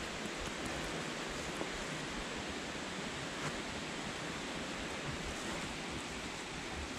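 Steady rushing of a mountain creek, an even hiss without break, with a few faint footfalls on the trail.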